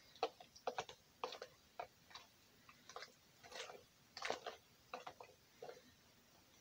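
A fork tapping and scraping against a plastic bowl while a plantain is mashed, in faint irregular clicks a few times a second.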